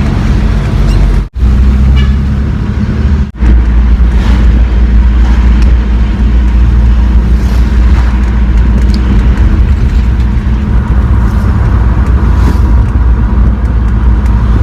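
Steady low rumble of a car being driven, heard from inside: road and engine noise. It cuts out abruptly twice in the first few seconds.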